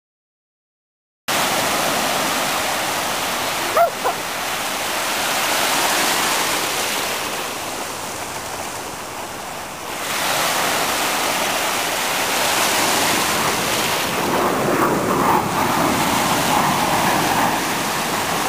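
Sea surf washing onto the beach, a steady rush of noise that begins after about a second of silence. Around four seconds in, one of the dogs gives a short yip.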